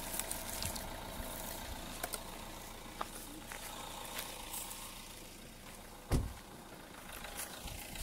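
Low steady outdoor rumble with scattered light crackles of steps on dry, cracked ground and brush. A single dull thump on the microphone about six seconds in.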